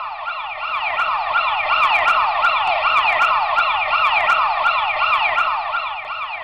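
Ambulance siren in a rapid repeating wail of quick falling sweeps, about three a second. It grows louder as the ambulance approaches and fades near the end as it drives past and away.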